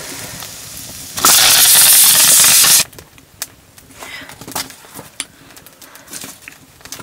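Buffalo meat curry frying in a pan with a steady sizzle, then a loud hiss lasting about a second and a half that starts and cuts off suddenly. Light clicks and taps follow.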